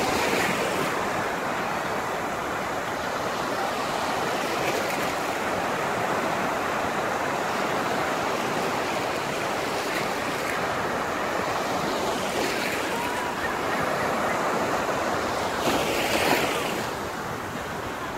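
Small sea waves washing and breaking in shallow surf, a steady rush that swells now and then, loudest in one wash near the end.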